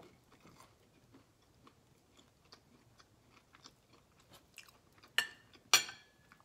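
Close-miked chewing of turkey bacon, many small mouth clicks and smacks. About five seconds in come two sharp clinks of a metal fork on a plate, the second with a short ring.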